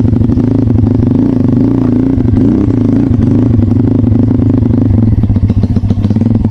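Trail motorcycle engine running at low speed, its pitch wavering slightly with the throttle over a rapid firing pulse, then cutting off abruptly at the end.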